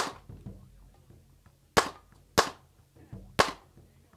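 Four shots from a 9mm Glock 26 fifth-generation compact pistol, fired at an uneven pace: one at the start, then three more between about two and three and a half seconds in.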